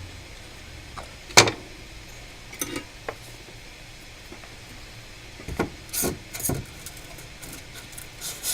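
A few sharp clicks and taps of small tools being handled and set down on a workbench, the loudest about a second and a half in and several more close together a little past the middle.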